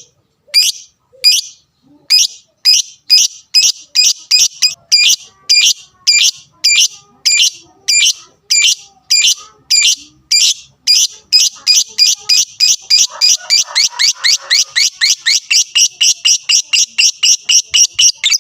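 Lovebird giving a long series of shrill, sharp chirps, evenly spaced at first and speeding up to a rapid run of about four a second in the second half.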